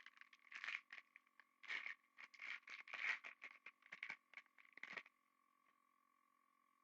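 Trading cards being handled and slid against one another: a quick run of short, scratchy rustles that stops about five seconds in.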